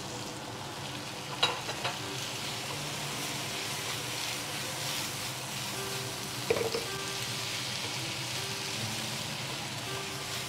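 Vegetables and tofu sizzling in oil in a hot wok while a spatula stirs and tosses them, with a couple of sharper knocks about one and a half and six and a half seconds in.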